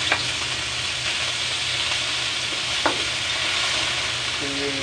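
Raw chicken skin sizzling steadily in a hot metal wok as it starts to render its fat. Two sharp knocks come from the wooden spatula pushing the skin in, one at the start and one about three seconds in.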